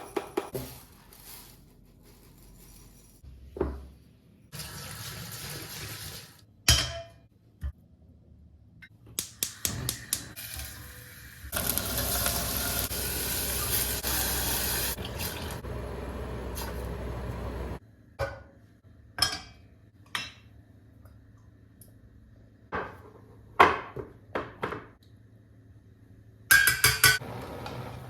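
Kitchen work: dishes and utensils clinking and knocking, with water running from a tap for about six seconds midway and more briefly earlier.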